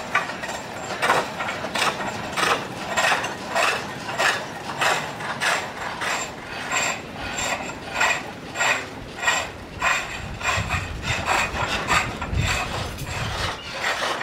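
Green wood being shaved with a hand blade in steady, rhythmic scraping strokes, about one and a half a second.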